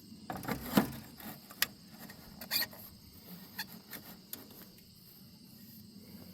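A few light clicks and knocks of parts being handled and fitted by hand, spread over the first four seconds, then quieter near the end.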